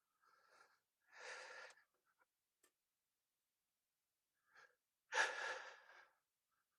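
Two faint breaths, one about a second in and a louder one about five seconds in, with a few light ticks between.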